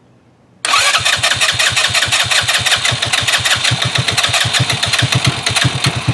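Trailmaster 150 XRX's single-cylinder engine being cranked on its electric starter, a fast steady chugging that starts less than a second in and stops about six seconds later. It is the first start attempt on a newly fitted replacement carburetor: the engine wants to run but does not stay running.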